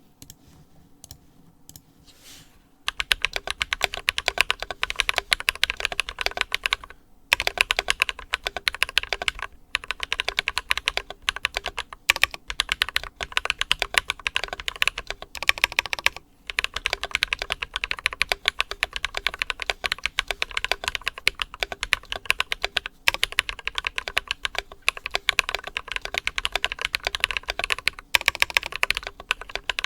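Typing on an ID80 mechanical keyboard fitted with lubed Glorious Panda tactile switches, PBT Cherry-profile keycaps, and foam under the plate and PCB. A few scattered key presses in the first seconds give way to fast, continuous keystrokes broken by brief pauses.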